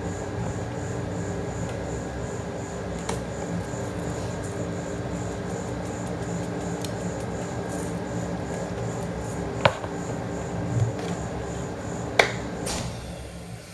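Steady machine hum from the rolled-ice-cream cold plate's refrigeration unit, fading out near the end. Over it come a few sharp plastic clicks as a sprinkle shaker is handled, the two loudest late on.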